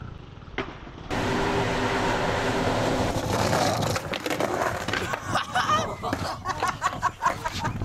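Skateboard wheels rolling loudly over concrete, then a run of sharp clattering knocks as the board and rider go down in a fall.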